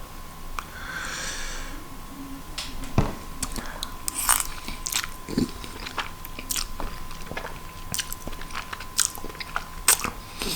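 Close-up mouth sounds of a person eating a bite of noodles: wet chewing with a scatter of sharp little clicks and smacks, and a soft hiss about a second in.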